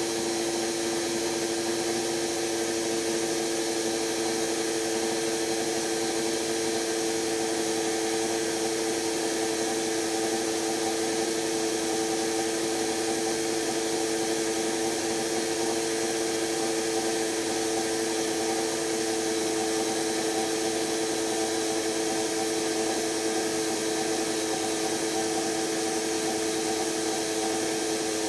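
Electra ELEC1647A3 washing machine's brushed motor running steadily at speed, a constant whine with a high hiss over it. The commutator is damaged and the motor is failing.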